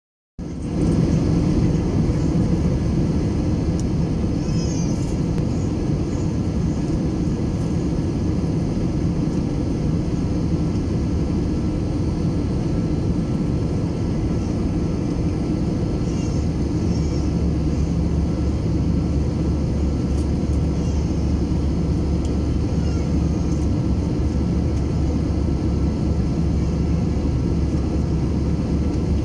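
Steady cabin noise of an Airbus A321-231 in flight, heard from a window seat over the wing: the rush of airflow and the drone of its IAE V2500 turbofan engines. A deeper hum grows stronger about halfway through.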